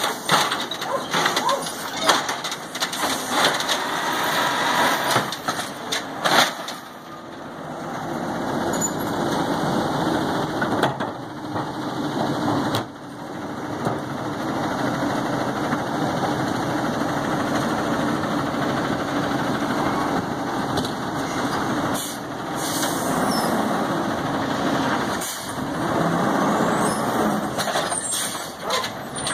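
Automated side-loading garbage truck: clanks and bangs as its lifting arm tips a recycling cart into the hopper, for the first several seconds. Then its engine and hydraulics run steadily as it pulls forward to the next carts.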